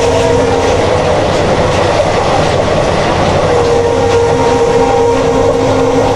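A WDP4D diesel locomotive's horn sounds in long, steady blasts over the loud rumble and wheel clatter of an express train running through at speed. One blast ends shortly after the start, and a second begins about halfway through and holds to the end.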